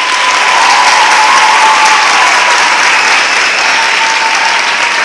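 Audience applauding loudly, with a faint thin held tone sounding through it.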